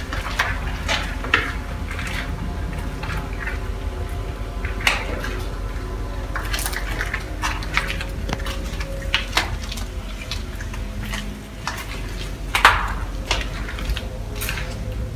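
Scattered footstep clicks and light clinks at irregular intervals, the sharpest about three-quarters of the way through, over a steady low hum.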